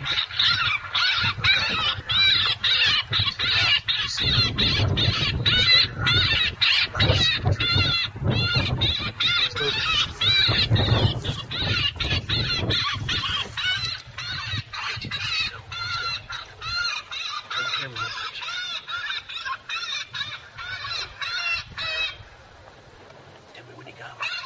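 Predator game call playing a bird distress sound: rapid squawking calls repeated several times a second, cut off abruptly near the end. Low wind rumble on the microphone in the middle.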